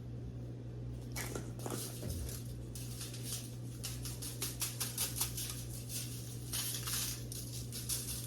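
Spice shaker being shaken over raw ribs, seasoning pattering down in quick rattling clusters that start about a second in, over a steady low electrical hum.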